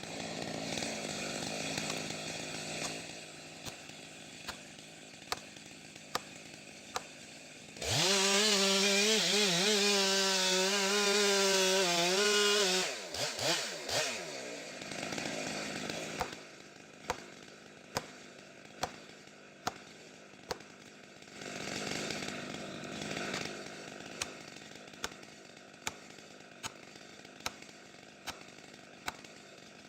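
A chainsaw running. It is quieter at first. About eight seconds in it jumps to full throttle for about five seconds, then revs down. After that the sound is lower, with regular sharp ticks a little faster than one a second.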